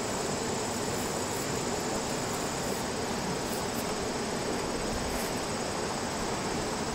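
Steady chorus of insects, a constant high-pitched trill, over an even outdoor hiss.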